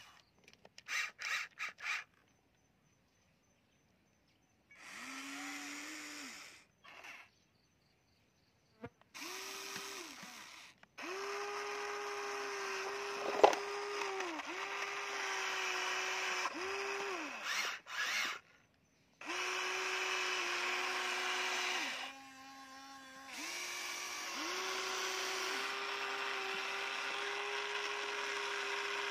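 Electric motors and gearboxes of a Huina remote-control excavator whining at a steady pitch as it works, starting and stopping every second or two, with longer runs near the end. A few short clicks come in the first couple of seconds, followed by about three seconds of silence.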